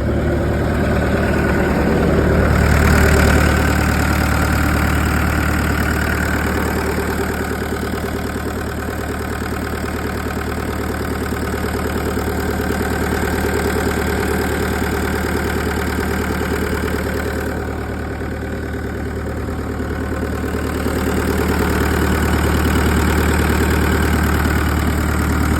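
Deutz BF4M1011F four-cylinder turbo diesel of a Bobcat 863 skid steer idling steadily just after starting. The loudness swells a little a few seconds in and again near the end.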